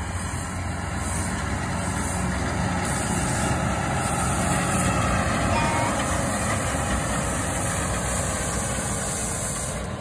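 Tractor engine running steadily as it pulls a Claas Rollant Uniwrap combination baler-wrapper past while the bale is being wrapped, getting louder as it comes close about halfway through and fading as it moves away.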